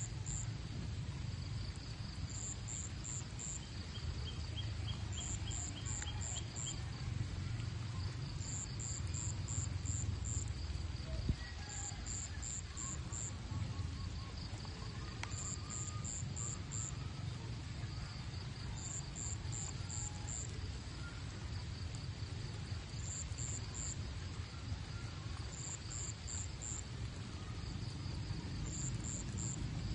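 Insects chirping: short trills of several high pulses, repeating every two to three seconds, over a steady low rumble. One sharp click about eleven seconds in.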